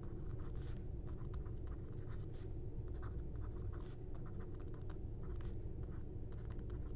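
Faint handwriting: a stylus scratching out quick, irregular strokes as a short note is written, over a low steady background hum.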